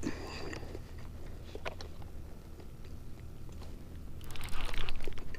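Fishing reel being cranked while a hooked fish is played on the rod, with clicking and handling noise that is loudest in a short burst about four seconds in.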